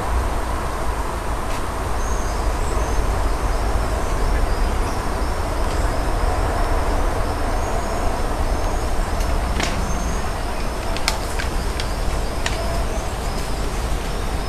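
Steady wind noise buffeting a small camera microphone, a low rumble under a constant hiss, with faint bird chirps above it. A few sharp clicks come about two-thirds of the way in.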